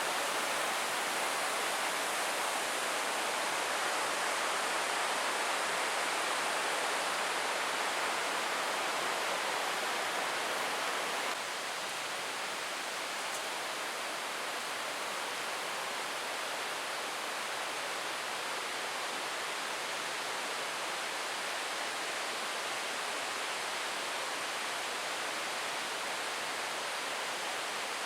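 Steady rushing of a stream's flowing water, an even wash of noise, dropping slightly in level about eleven seconds in.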